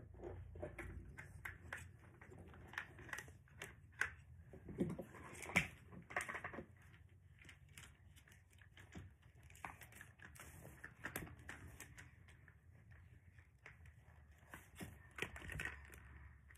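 Hard plastic Hot Wheels track pieces being handled and fitted together: scattered clicks and clacks, with a few louder knocks around four to six seconds in.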